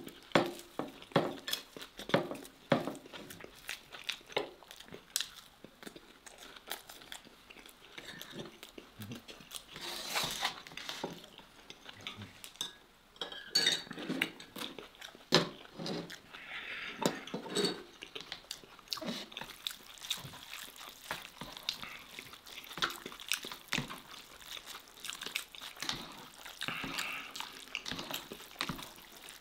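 Eating and table-handling sounds: chewing, with scattered clicks and knocks of a plate, a fork and an instant-noodle cup being moved and stirred.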